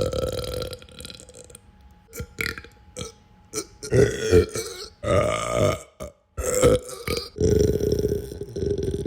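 A person belching over and over: a run of separate burps, some short and some drawn out, with the longest starting about two thirds of the way in and running on.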